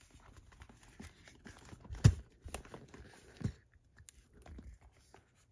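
A hand opening rigid card packaging: card rubbing and light taps as the artwork wrap is unfolded, with a sharp knock about two seconds in and a softer one about a second and a half later.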